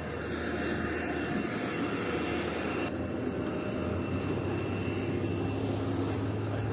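Pilatus PC-12's single Pratt & Whitney PT6A turboprop engine running before departure, heard from the cabin. A steady high whine sits over a low drone, and the drone steps up in pitch about four seconds in.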